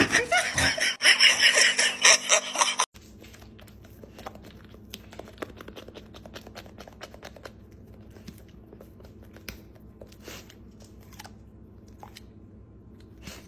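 About three seconds of loud, rapid clatter, then a big white dog chewing a crunchy treat: scattered soft crunches.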